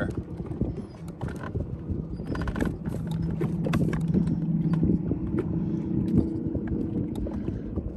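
Wind and water noise around a small fishing boat, with scattered light knocks. A low, steady motor hum runs for a few seconds in the middle, the boat's motor holding it in position against the wind.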